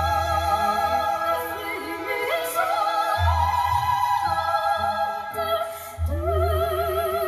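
Background music: an operatic singing voice with wide vibrato over accompaniment, with deep sustained bass notes coming in about three seconds in and again near six seconds.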